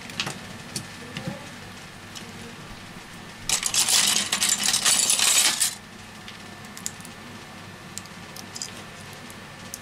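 Small phone parts handled on a rubber repair mat: a few light clicks in the first second, then a dense, loud rattling clatter lasting about two seconds starting three and a half seconds in, then a few more small clicks.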